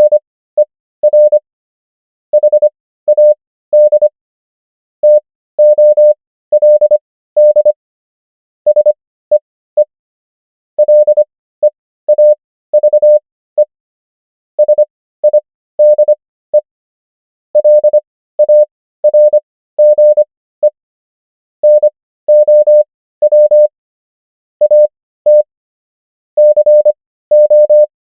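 Morse code practice: a single steady beep keyed on and off into dots and dashes, spelling common English words with characters sent at 25 words per minute and Farnsworth spacing, longer gaps between characters and words, for an overall 15 words per minute.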